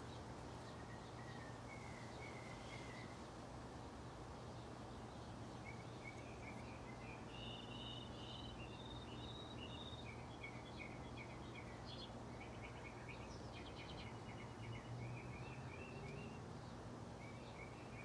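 Small birds singing: runs of quick, high chirping notes, sparse at first and busiest in the middle, over a faint steady low hum.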